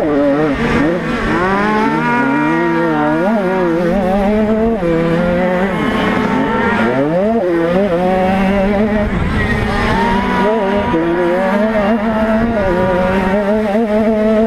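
50 cc two-stroke motocross engine heard from on board, its pitch rising and falling again and again as the throttle is opened and closed.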